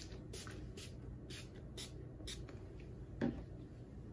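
Fine-mist pump spray bottle spritzing in short hisses, about two a second, stopping about two and a half seconds in. A soft knock follows about three seconds in.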